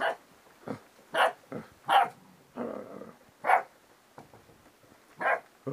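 Eight-week-old Rottweiler puppies barking: a string of about eight short, high yaps at uneven intervals, with one longer, lower growl-like sound near the middle.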